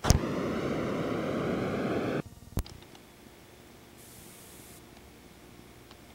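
Loud burst of static hiss on the analog videotape's sound track, starting with a click and lasting about two seconds before cutting off suddenly, followed by a single click; a short faint high hiss comes a little later as the picture breaks up.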